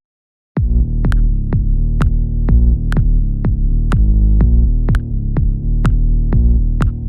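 Electronic dance music with a drum-machine beat of about two hits a second over heavy bass, starting about half a second in.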